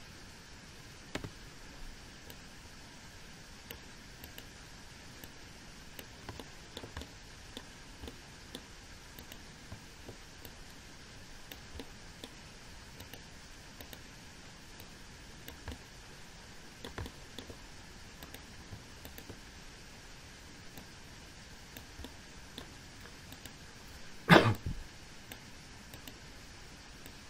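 Faint computer mouse clicks over a low steady hiss, with one short, loud burst about three seconds before the end.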